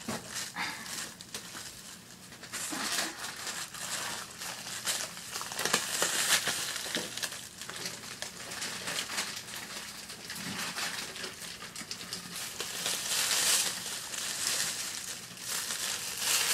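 Thin plastic grocery bag crinkling and rustling in irregular bursts as it is handled and items are packed into it.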